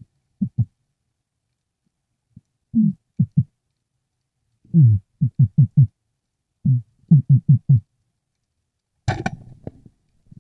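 Underwater, a series of short, low grunts in bursts of two to five, a few gliding downward in pitch. About nine seconds in comes one sharp crackling snap.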